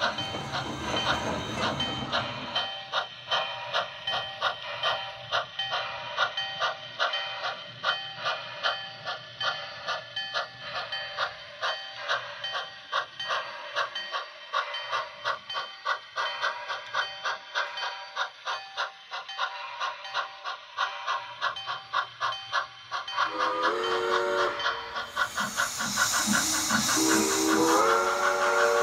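Steam-locomotive sound effects for an HO-scale CN 2-6-0 model steam locomotive: an even, rhythmic steam chuff as it runs. A multi-note chime whistle sounds briefly about 23 seconds in, followed by a loud hiss of escaping steam, then a longer whistle near the end.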